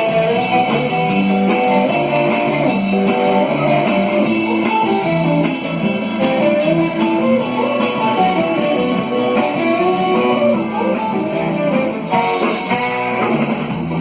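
Live band playing an instrumental break between sung verses, a guitar carrying the melody over a steady accompaniment.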